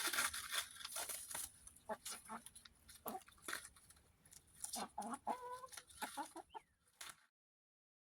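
A flock of hens clucking while they peck at food, with scattered light pecking clicks; a short run of clucks comes about five seconds in, and the sound cuts off suddenly about seven seconds in.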